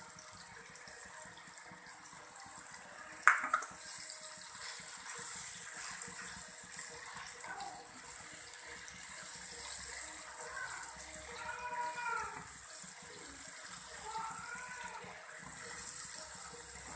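Potato fries frying in hot oil in a kadai: a steady high sizzle, with one sharp knock about three seconds in.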